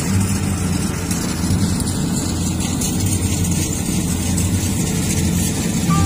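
Engine of a rice combine harvester running steadily: a loud, constant low hum.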